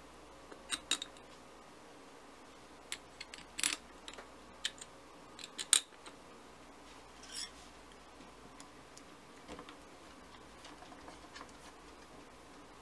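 Small steel screws and a screwdriver clicking against a Honda CB650 carburetor's metal float bowl as the bowl screws are started in by hand. Scattered sharp metallic clicks, loudest about four and six seconds in, then only faint ticks.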